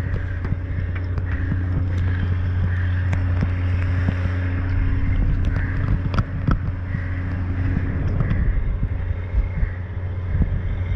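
Steady low engine drone, even and unchanging, with wind buffeting the microphone and a few light knocks.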